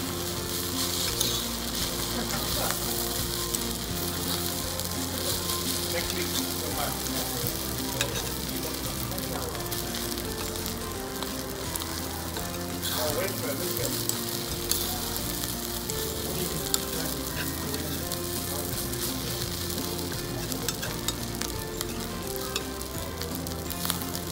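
Fried rice and melted cheese sizzling on a hot iron sizzle plate, with a metal spoon and fork scraping and clinking against the plate as the rice is stirred.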